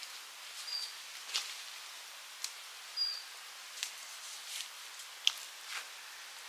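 Outdoor natural ambience: a steady hiss with irregular light clicks and ticks, and two short high chirps, one about a second in and another about three seconds in.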